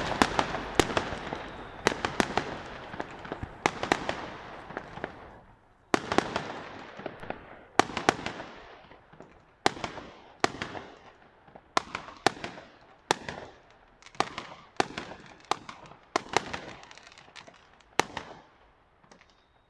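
Fireworks exploding in the sky. There is a dense run of sharp bangs and crackling for the first several seconds, then single bangs about once a second, each trailing off in a long echo.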